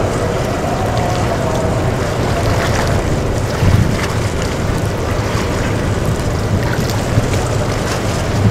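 Wind rushing over the microphone over a steady low drone from a small coastal tanker's engine running through the harbour. There is one brief louder bump near the middle.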